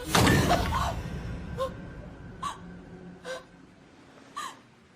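A loud rushing burst at the start fades away, then a person gasps for breath in short, shaky catches about once a second, some with a brief falling whimper.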